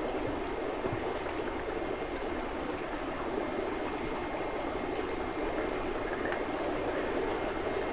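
Steady rush of water circulating through seafood holding tanks.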